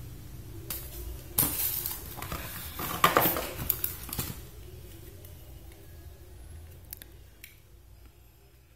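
Handling noise as the contents of a USB TV tuner box are picked up and moved: rustles and sharp clicks, busiest between about one and four seconds in, then fewer and fading.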